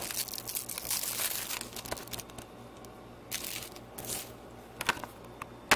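Thin plastic shrink wrap crinkling and tearing as it is peeled off a Blu-ray case, busiest in the first two seconds, then a few short crinkles and a click near the end.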